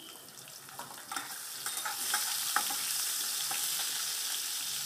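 Chopped green chillies sizzling in hot oil in a steel kadhai, the sizzle swelling over the first two seconds and then holding steady. Light scrapes and taps of a steel spatula stirring them come through during the first half.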